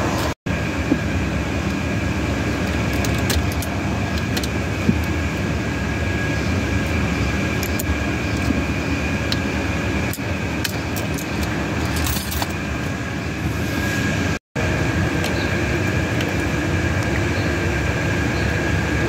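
Keys jangling and small metal clicks from a 2015 Chevrolet Silverado ignition lock cylinder being turned with its key and worked out of the steering column, over a steady background hum. The sound cuts out briefly twice, just after the start and about two-thirds of the way through.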